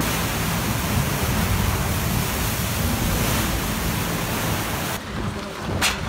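Storm waves surging over a seawall and flooding a terrace, a dense steady rush of churning water and wind. About five seconds in it cuts to a different windy recording, with a sharp knock just before the end.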